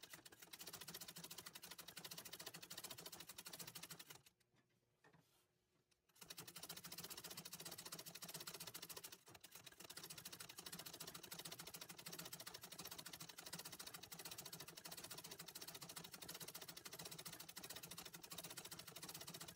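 Antique treadle sewing machine stitching at a fast, steady rate, its needle clattering during free-motion embroidery. About four seconds in it stops for about two seconds, then runs on with a brief pause about nine seconds in.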